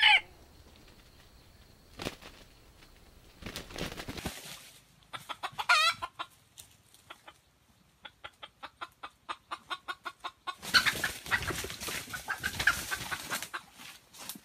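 Red junglefowl clucking: a pitched call about six seconds in, then a regular run of short clucks, about three or four a second. Near the end comes a loud burst of rustling and wing-flapping in the leaf litter.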